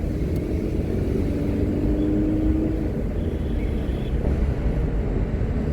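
Steady low rumble of a vehicle driving along a road, engine and road noise, with a faint steady hum in the first half.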